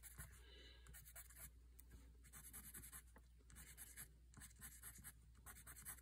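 Faint, rapid scratching of a Derwent Inktense watercolor pencil on Bristol paper: short back-and-forth strokes as grass is sketched in as repeated M shapes.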